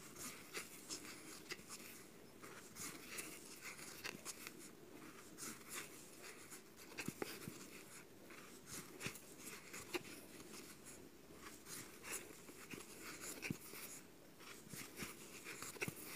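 Faint rustling and scattered light clicks of hands crocheting, a hook pulling cotton yarn through stitches, with a few sharper ticks.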